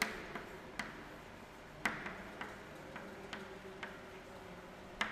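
Chalk tapping and clicking against a chalkboard while writing: irregular sharp ticks, about ten of them, the loudest about two seconds in and just before the end.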